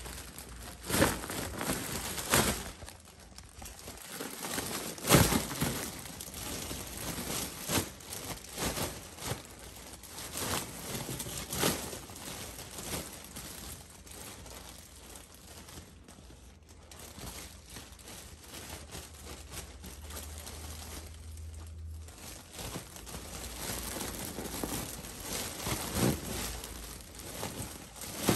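Large foil balloon crinkling and rustling in irregular bursts as a baby grabs, hugs and pushes it. The loudest crinkle comes about five seconds in.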